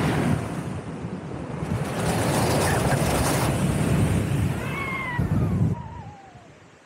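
Wind rushing over the microphone of a paraglider in flight, dropping away sharply near the end. Shortly before the drop, a short pitched call slides down in pitch.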